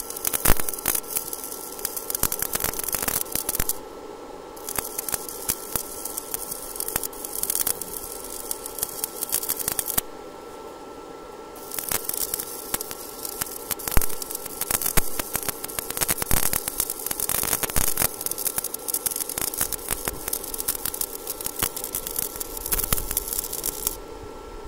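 Stick arc welding on steel rebar: the electrode's arc crackling steadily, with two short breaks about 4 s and 10 s in, and stopping shortly before the end. A faint steady hum runs underneath.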